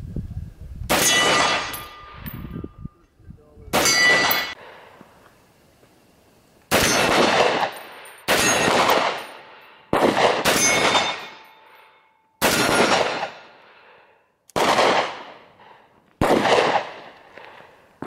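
Imbel FAL rifle in 7.62 NATO fired standing: nine single shots at an uneven pace, one to three seconds apart, each trailing off in a long echo.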